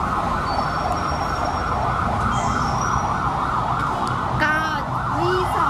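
Fast warbling emergency-vehicle siren, its pitch rising and falling several times a second, with a brief pitched call cutting in a little past four seconds in.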